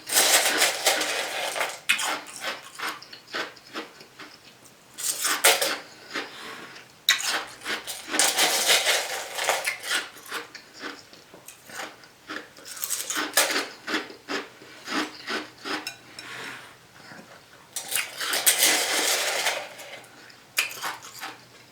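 Close-miked crunching of Sonic nugget ice being chewed, in repeated bouts of sharp crackling crunches with short pauses between.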